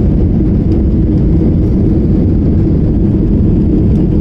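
Jet airliner cabin noise during the climb after takeoff: the engines and rushing air make a steady, loud, low drone heard from inside the passenger cabin.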